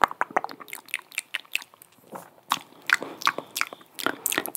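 Close-miked ASMR mouth sounds: wet tongue clicks and lip smacks, coming irregularly several times a second, with a short lull in the middle.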